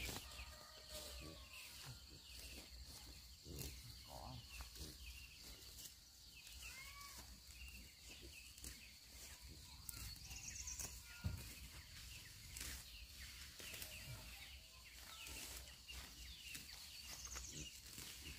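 Faint farmyard background: scattered soft chirps and clucks from chickens, over a steady faint high-pitched hum.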